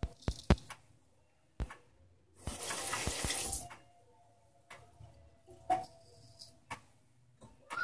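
Sink tap running for about a second, rinsing the straight razor mid-shave. A wall clock ticks about once a second, with a few other sharp clicks around it.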